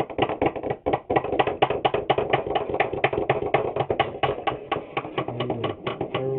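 Guitar music with a quick, steady run of sharp percussive taps, several a second, over sustained low notes.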